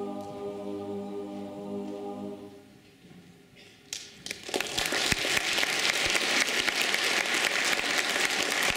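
A boys' choir holds its final unaccompanied chord, which dies away about two and a half seconds in. After a moment of quiet, the audience breaks into applause that keeps going to the end.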